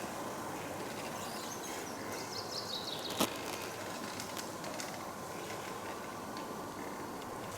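Outdoor forest ambience: a steady rushing background noise, with a bird's short descending trill about two and a half seconds in, followed by a single sharp snap.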